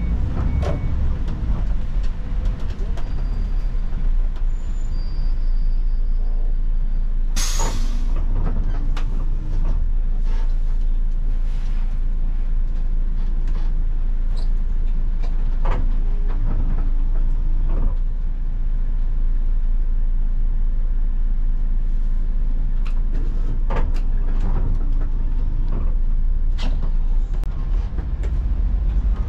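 Iveco Crossway city bus heard from inside the cabin, its engine running with a steady low rumble while the bus waits in traffic. About seven seconds in comes one short, sharp hiss of compressed air from the air brakes, with a few faint clicks and knocks later on.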